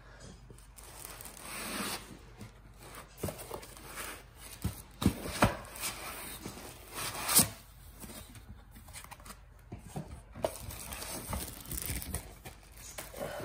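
Thin white wrapping being pulled back from a portable projector in its cardboard box: rustling and crinkling, with a few sharp knocks, the loudest about seven seconds in.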